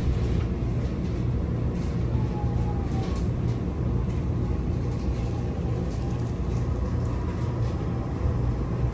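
A train running, with a steady low rumble and faint high squeals.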